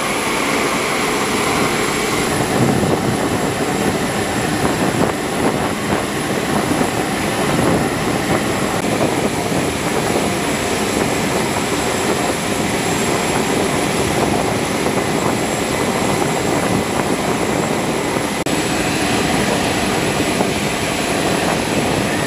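Steady running of an aircraft turbine engine: a dense, even rush with a thin high whine held above it.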